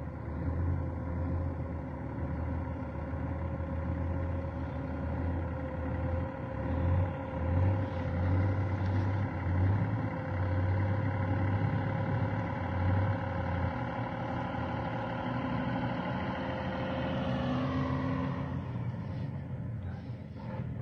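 Diesel engine of a Scania 440 6x6 tractor unit running steadily as it hauls a heavy lowboy trailer carrying an excavator, heard from inside a car; near the end its note falls as the truck turns past.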